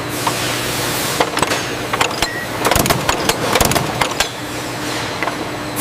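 Factory machinery ambience: a steady machine hum with many scattered metallic clicks and clanks, busiest around the middle.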